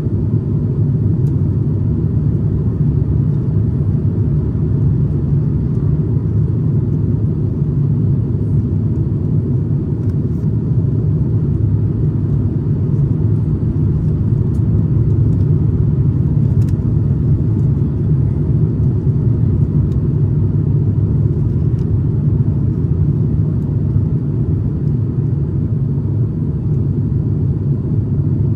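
Steady low rumble of cabin noise inside an Airbus A350-900 on approach, from airflow and its Rolls-Royce Trent XWB engines, heard from a window seat. A few faint clicks sit over it.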